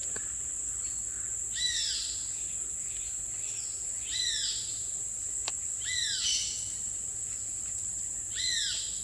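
Rainforest ambience: a steady high insect drone, with a bird repeating a short downward-sliding call four times, about every two and a half seconds.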